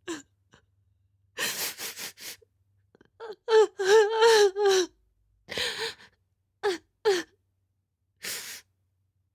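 A person crying: ragged, gasping breaths, then a run of wailing sobs that fall in pitch about three seconds in, followed by more short gasps and whimpers.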